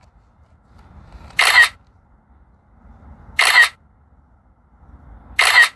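Camera shutter sound from a drone controller app, clicking three times about two seconds apart as the drone takes one photo after another for a timed interval sequence (hyperlapse).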